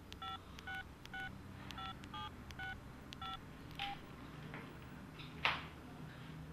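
A telephone number being dialled on a keypad: about nine short touch-tone beeps, each a different key, about two a second, with faint key clicks. Near the end there is a brief rustle.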